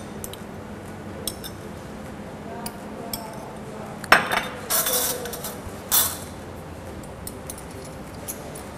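Metal spoons clinking and scraping against ceramic bowls and plates, with scattered sharp clinks and a run of louder clatters about four to six seconds in.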